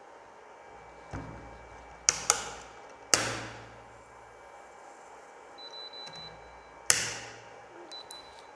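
Fusion splicer being set up to heat-shrink the splice-protection sleeve: several sharp plastic clacks as the fibre holders and heater lid snap shut, and two short high electronic beeps from the machine as the sleeve heater starts.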